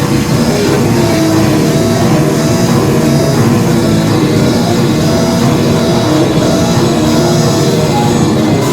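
Loud, dense experimental industrial electronic music: a thick, sustained mass of layered tones with no clear beat.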